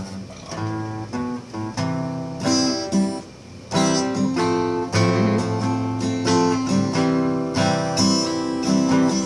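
Acoustic guitar strumming and picking chords, playing the lead-in to a country gospel song in what the player takes to be the key of C.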